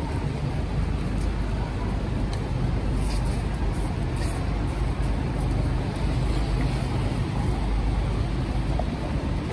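Steady city street traffic on a wet road: cars and double-decker buses running past, with a constant low engine rumble and tyre noise.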